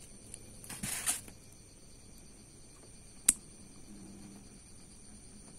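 Small metal parts of an RC car's rear differential handled in the fingers: a brief rustle about a second in, then a single sharp metal click a little after three seconds as a metal drive coupler is fitted onto the pinion shaft.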